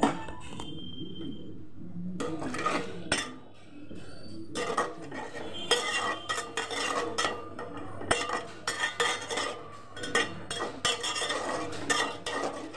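Steel ladle stirring and scraping around a metal pot of watery moong dal, with repeated metal-on-metal clinks. It starts about two seconds in and gets busier from about four seconds, over a steady low hum.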